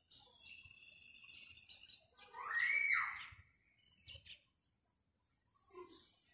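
Birds chirping in the background, with one louder call about two and a half seconds in that rises and falls in pitch.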